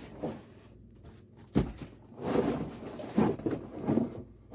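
A cardboard shipping box being handled: a sharp thump about a second and a half in, then a few seconds of uneven rustling and scraping.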